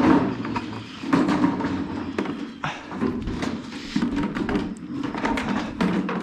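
Calves at their milk teat buckets in pens, with repeated knocks and thumps of buckets and pen against each other throughout.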